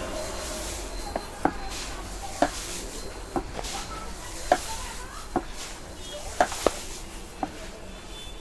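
Sharp, hollow hand slaps of a head and upper-body massage, about one a second at an uneven pace, each ringing briefly.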